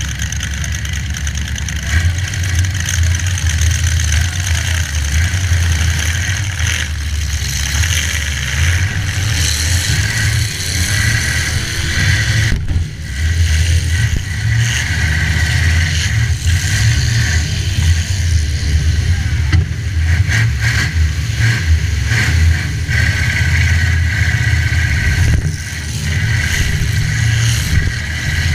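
Demolition derby car engines running and revving, with a steady deep rumble throughout.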